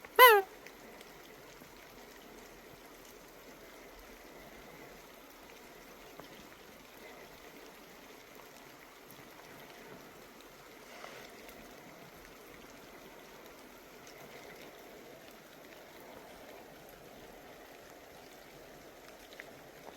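Steady hiss of water, broken twice by a loud, short call that falls in pitch, once just after the start and once at the very end.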